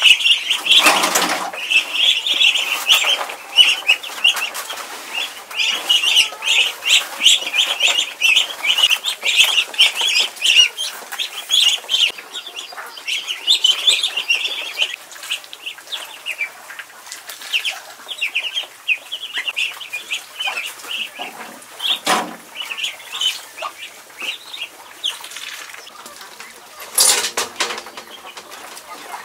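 A brood of ducklings peeping, a dense chorus of high peeps that thins out after about halfway. A few short knocks break in, about a second in, around two-thirds through and near the end.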